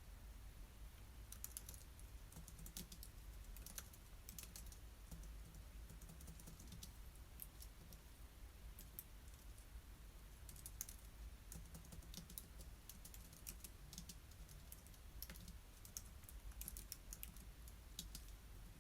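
Typing on a computer keyboard: quiet, irregular runs of key clicks with short pauses between them.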